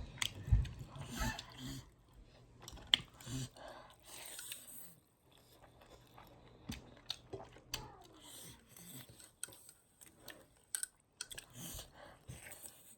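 Close-miked chewing of spicy pork, with irregular wet mouth clicks and small crunches; the sharpest comes about three seconds in.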